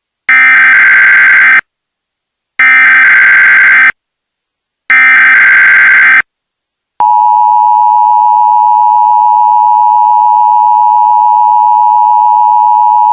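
Emergency Alert System header: three short bursts of screechy digital data tones, one after another, followed about seven seconds in by a steady, loud attention tone.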